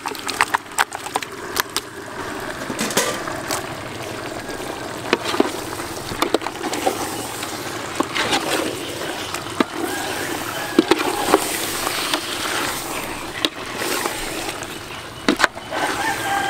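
Raw goat meat pieces dropping into a steel cooking pot, then a metal ladle stirring the meat through curry paste, with irregular knocks and scrapes against the pot's side.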